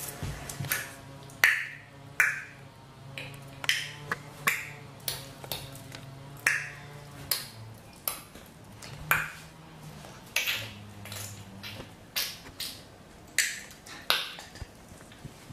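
Background music: sharp finger snaps, a little under one a second, over a low held bass line that changes note now and then.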